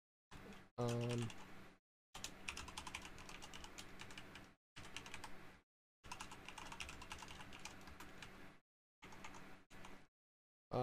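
Typing on a computer keyboard: quick runs of keystrokes broken by short pauses where the sound cuts out completely.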